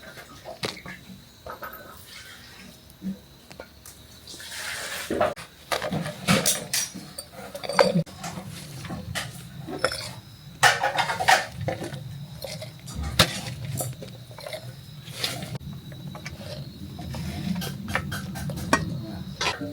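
Kitchen dishes and utensils clinking and knocking in a run of sharp taps, with a low steady hum through the second half.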